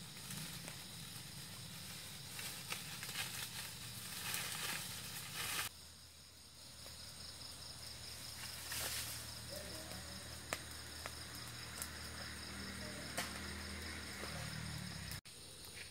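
Burning hornet nest and brush fire crackling and hissing, with scattered sharp pops, over a steady high chirring of night insects. The sound changes abruptly about six seconds in and drops out for an instant near the end.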